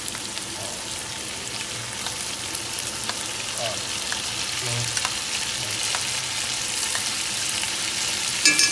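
Chicken sizzling and crackling steadily in hot oil in a metal karahi as yogurt is poured in, the sizzle growing a little louder. A short sharper sound comes near the end.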